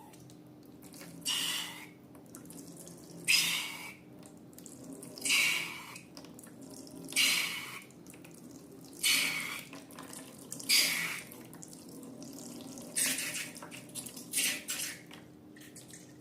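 Liquid slime ingredients gushing out of balloons into a container in short splashy pours, about eight of them roughly two seconds apart.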